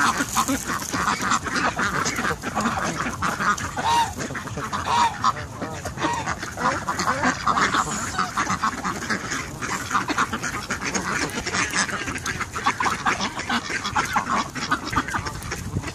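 A crowded flock of ducks and Canada geese calling around someone feeding them: quacking and honking, many calls overlapping without a break. These are begging calls that go quiet once the food stops.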